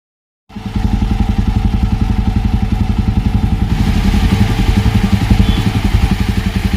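Single-cylinder motorcycle engine running steadily with a rapid, even exhaust pulse. It cuts in abruptly about half a second in.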